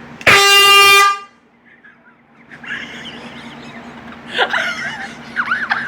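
A handheld air horn gives one loud blast, just under a second long, a steady blaring tone that cuts off sharply.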